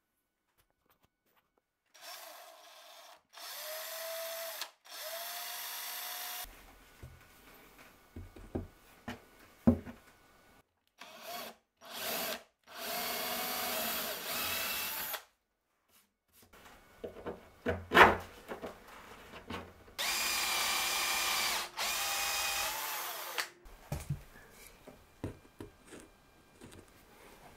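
Cordless drill running into a pine wood upright in about six short runs of one to three seconds, its motor whine rising in pitch as each run starts. Between runs come knocks and clatter of handling, with one sharp knock standing out about two-thirds of the way through.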